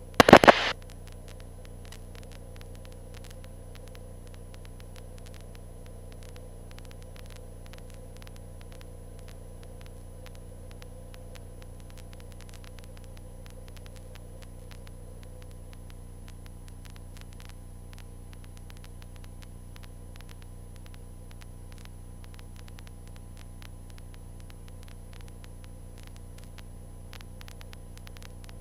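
Steady electrical hum with faint crackling static from a light aircraft's intercom and radio audio feed. The engine is barely heard through it. A brief burst of radio noise comes at the very start.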